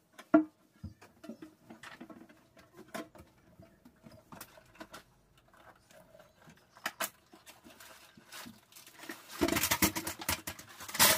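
Scattered clicks and knocks of hands and a cloth on a stainless steel sink, with one sharp knock just after the start. Near the end, about two seconds of metal clattering as a wire dish rack loaded with pots and a steel bowl is set over the sink.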